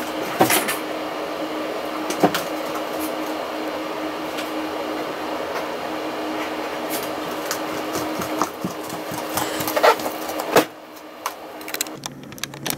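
A steady machine-like whir with a constant low hum, broken by a few sharp knocks, that cuts off abruptly about ten and a half seconds in; a few light clicks follow.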